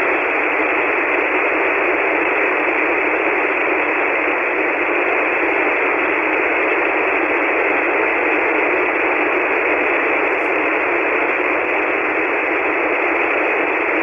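Steady hiss of band noise from a ham radio receiver on 40-metre single sideband with no station transmitting, held to the narrow voice passband of the receiver.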